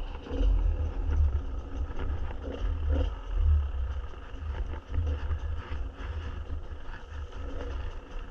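Enduro dirt bike engine running while riding, heard under a loud, uneven low rumble that swells and drops every second or so.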